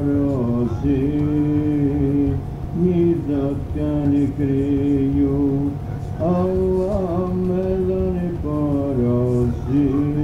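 Male voice singing an ilahi, a devotional Islamic hymn, in long held notes that slide and turn between pitches, over a sustained low drone.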